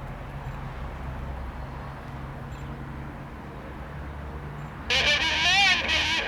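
A steady low drone, then about five seconds in an airband radio transmission cuts in abruptly and loudly: a distorted, narrow-sounding voice through a scanner's speaker.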